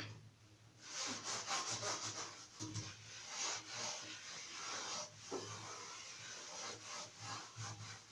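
Scrubbing strokes on a plastic fan grille with soapy water, a quick irregular back-and-forth rubbing that starts about a second in.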